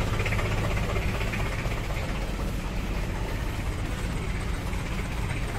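2002 Daihatsu Taft Hiline pickup's engine idling steadily, running smooth.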